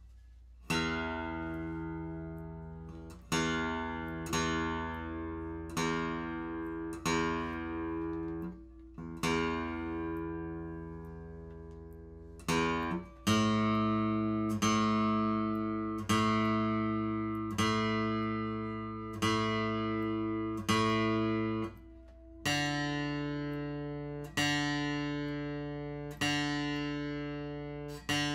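Steel-string acoustic guitar, single strings plucked one at a time with a pick, one note about every second and a half, each ringing and fading. This is a tuning check, the same string struck repeatedly. The pitch steps up to a new string about halfway through and again about three quarters of the way in.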